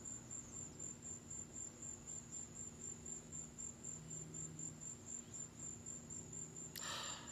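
Crickets chirping: a steady, high-pitched, evenly pulsing chirp, with a brief hiss-like noise near the end.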